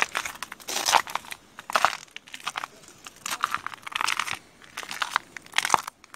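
Footsteps crunching in snow while dry twigs and bare branches crackle and brush past, in uneven crunches about once a second.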